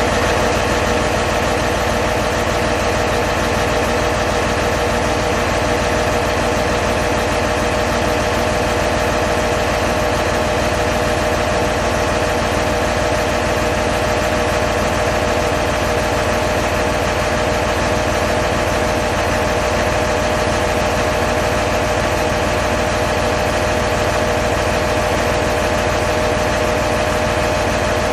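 Diesel railcar's engine idling at a standstill: a steady, loud running note with a constant whine, unchanging throughout.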